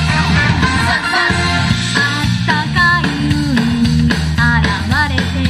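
A pop song with guitar and a sung vocal line.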